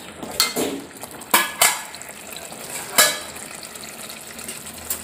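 Steel spoon stirring thick, cooked-down masala paste in a metal pot, with a few sharp clacks of the spoon against the pot over a low frying sizzle.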